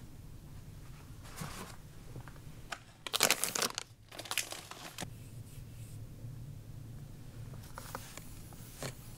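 Plastic-wrapped packs crinkling as they are handled in a flip-down shoe-cabinet compartment, loudest for about a second, three seconds in, with a shorter rustle just after and a few light knocks.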